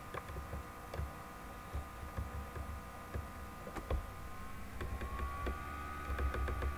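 Steady electrical whine over a low rumble, the whine shifting up slightly about five seconds in, with a few faint clicks of a computer mouse.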